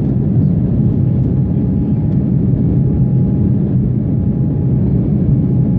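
Steady cabin noise inside an Embraer 190 jet airliner in flight: the low drone of its GE CF34-10E turbofan engines and airflow, with a faint steady whine above it.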